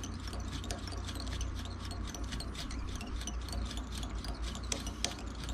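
Thread being wound around the head of a bucktail jig, a faint scratchy rubbing with many small irregular ticks, over a steady low hum.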